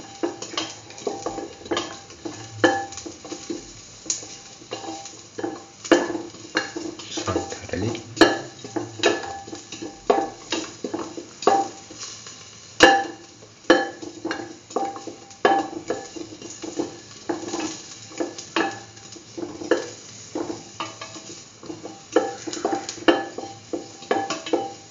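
A spatula scraping and knocking against a stainless steel pan while garlic and cumin seeds are sautéed in oil, about one or two strokes a second, each leaving a brief metallic ring, over a light sizzle.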